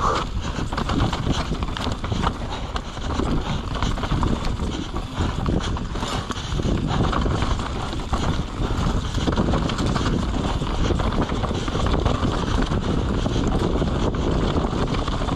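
Wind buffeting the microphone over the rattle and knock of a mountain bike and its tyres riding fast down a rough trail.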